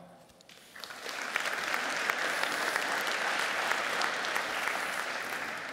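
Audience applauding in a large hall, starting about a second in, holding steady, then fading out near the end.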